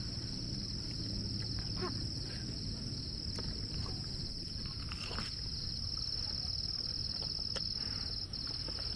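Crickets chirping in a steady, unbroken high-pitched chorus over a low steady rumble.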